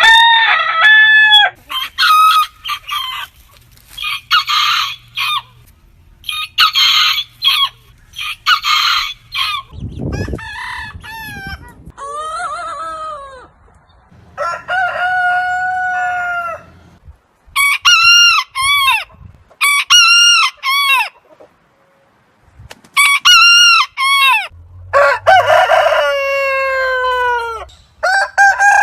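Roosters crowing, one crow after another, with stretches of shorter repeated calls and clucking between the long crows.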